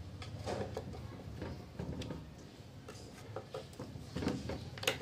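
Faint scattered clicks and light knocks of hands handling a home theatre subwoofer cabinet and its cable at the back panel, with one sharper click near the end.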